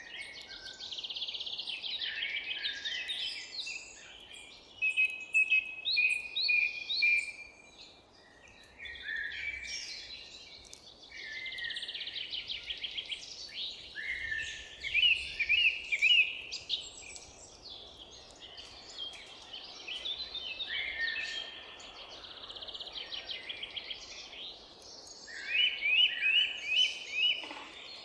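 Several forest songbirds singing over one another: chirps, quick trills and short repeated phrases, over a faint steady background hiss. The loudest is a run of about five quick, sharp notes near the end.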